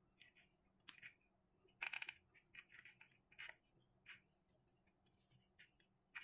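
Faint, irregular scratchy rasps and small clicks of hands winding thin binding cord around rubber tubing on a wooden slingshot fork and pulling it tight. The loudest is a quick rattle of clicks about two seconds in.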